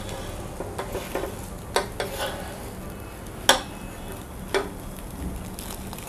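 A steel spatula scrapes and taps against a flat dosa griddle (tawa) as the dosa is loosened and rolled, a handful of sharp scrapes with the loudest about three and a half seconds in. A soft sizzle from the hot griddle runs underneath.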